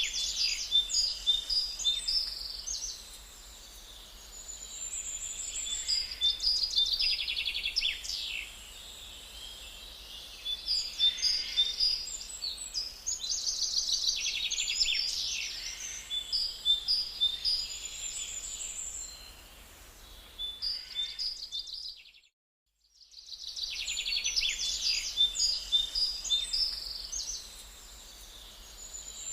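Several songbirds singing and chirping at once, with fast high trills and short repeated notes. The chorus cuts out for about a second roughly three quarters of the way through, then starts again.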